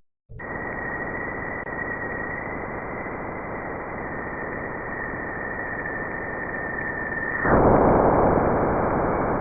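Space radio emissions recorded by a spacecraft and converted to sound: a static-like hiss with a steady high whistle over it, beginning a moment in. About seven and a half seconds in, the whistle stops and the hiss grows louder.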